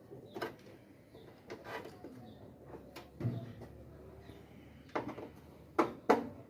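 Clicks and knocks of hand tools and plastic parts being handled on a washing machine as a part is unscrewed and worked loose: about six separate sharp knocks, the two loudest close together near the end.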